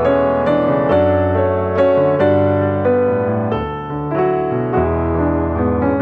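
Background piano music: a steady melody of notes over sustained chords.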